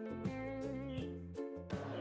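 Background music: a light tune of pitched notes that change every fraction of a second, with a steady rhythm.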